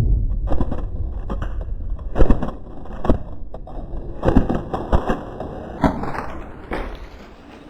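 Irregular sharp clicks and knocks, roughly one or two a second and the loudest about two seconds in, over a steady low rumble; in this airsoft game they fit airsoft gunfire and BB hits.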